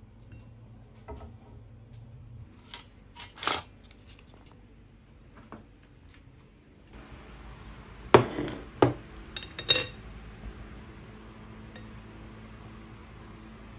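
Chopsticks clinking against a glass plate as food is picked up: a few scattered clinks in the first half, then a louder cluster of clinks about eight to ten seconds in, over a steady low room hum.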